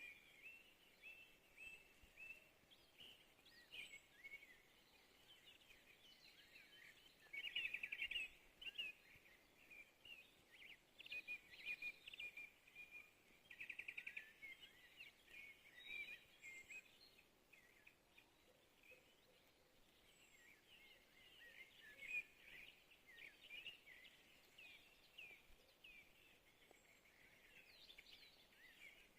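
Faint songbirds singing: many short chirps and calls overlapping, with a rapid trill about seven seconds in and another about thirteen seconds in.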